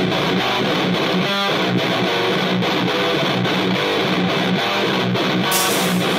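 Death metal guitar break: a distorted electric guitar playing a riff on its own, with no bass or drums under it.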